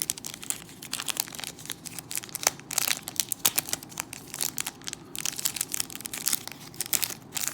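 Foil Pokémon booster pack wrapper being crinkled and torn open by hand, a dense run of irregular crackles and sharp rips.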